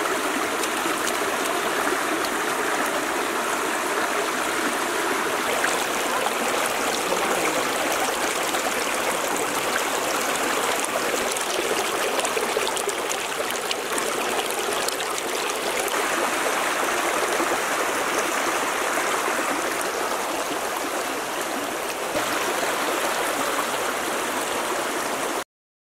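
Stream water rushing over rocks in a steady flow, which cuts off suddenly near the end.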